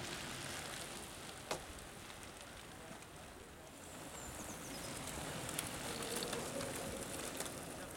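Knobby mountain-bike tyres crunching and rustling over a gravel track as riders pass, with one sharp click about a second and a half in.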